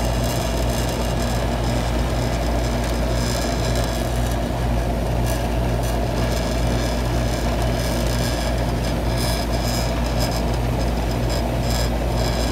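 Outdoor air-conditioner condenser unit running under load, drawing about 12 amps: a steady, even hum of the compressor and fan that does not change.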